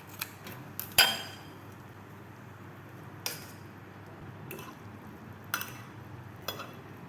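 Cutlery clinking against dishes: about six sharp clinks spaced irregularly, the loudest about a second in with a short ring.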